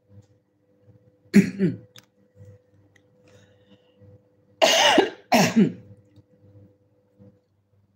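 A woman coughing into her fist: one cough a little over a second in, then two louder coughs close together about halfway through.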